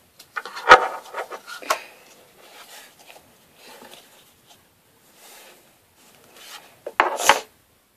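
Slime being squeezed and worked in the hands close to the microphone: soft sticky clicks and rubbing noises, with louder bursts about a second in and again near the end.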